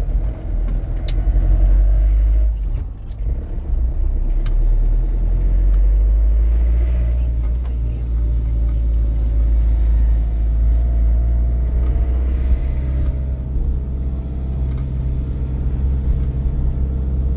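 A large road vehicle driving, with a steady low engine and road rumble. The engine note shifts slightly about two-thirds of the way through.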